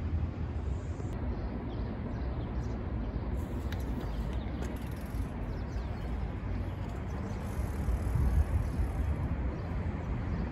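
Steady low rumbling outdoor noise with no distinct events: city street ambience with motion noise on the microphone.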